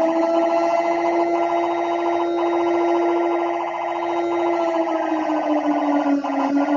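Siren sound of a mock emergency alert: a loud, held wailing tone that sags in pitch about five seconds in and climbs back near the end.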